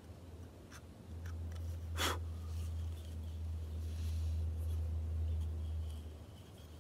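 Knife whittling a small wooden figure: light scratchy cuts and a few faint clicks, with one sharp click about two seconds in, over a steady low hum from about one to six seconds.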